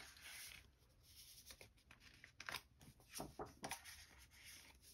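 Faint rustling and a few soft clicks of photo prints being handled and slid into plastic binder sleeves.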